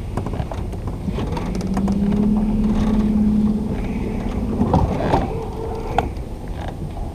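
Electric trolling motor humming: it comes on with a slight rise in pitch about a second in, runs steadily for about three seconds, then stops with a thump. Wind rumbles on the microphone, with a few small clicks.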